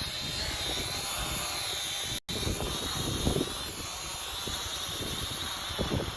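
Holy Stone HS120D quadcopter's propellers whining steadily as it descends on auto-land, the pitch wavering slightly, with gusty wind buffeting the microphone. The sound drops out for an instant about two seconds in.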